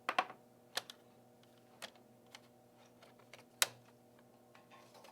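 Plastic snap clips of a Dell XPS M1710 laptop's hinge cover clicking loose as the cover is pried up with a small flathead screwdriver: about six sharp, separate clicks, the loudest just after the start and about three and a half seconds in.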